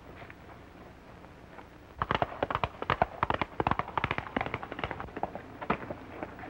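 Horse hoofbeats on a dirt trail: a few scattered clops at first, then from about two seconds in a quick, dense clatter of two horses' hooves that thins out near the end.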